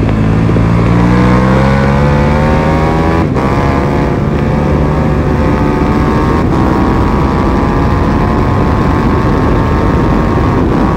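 KTM 1290 Super Duke R's V-twin engine accelerating hard at full throttle, climbing in pitch, with two quick upshifts about three and six and a half seconds in. Heavy wind rush on the camera microphone at high speed.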